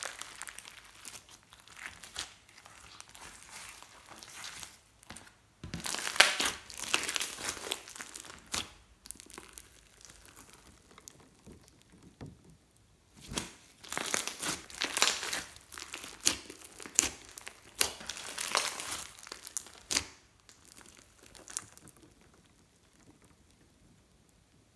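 Slime mixed with beads and glitter being squeezed and stretched by hand, crackling and popping in bursts with quieter gaps between; it goes quiet near the end.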